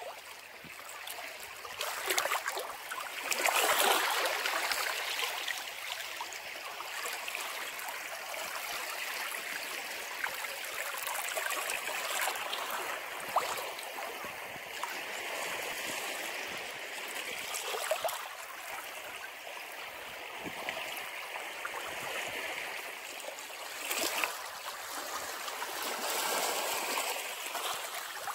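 Ocean waves breaking and washing over a rocky shore: a continuous rush and gurgle of water that swells with each wave. The loudest surge comes a few seconds in, with smaller swells every several seconds after it.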